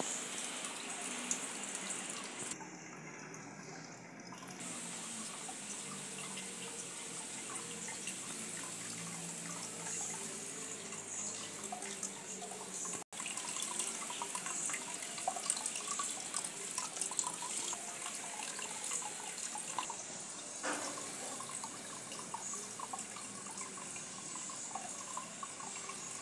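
Water steadily trickling and splashing from the spout of a small terracotta jug fountain into its clay basin. The sound drops out for an instant about halfway through.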